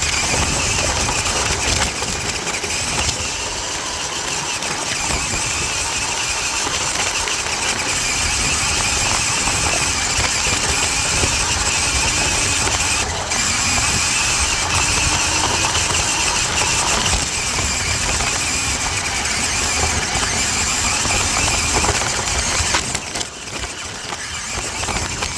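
Small electric motor and gears of a toy 4x4 RC truck whining steadily as it drives, with the wheels rattling over the ground, heard from on board the truck. The sound wavers and drops off near the end.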